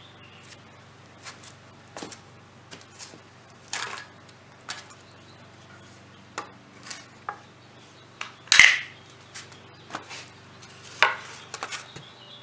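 Irregular knocks and clicks of wooden furring-strip boards and bar clamps being handled and the clamps taken off, the loudest knock about two-thirds of the way through.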